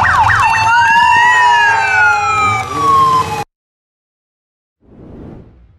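Sirens on police escort motorcycles give a few quick yelps, then wind down in long falling tones over the motorcycles' engines; everything cuts off suddenly about three and a half seconds in. A faint soft whoosh follows near the end.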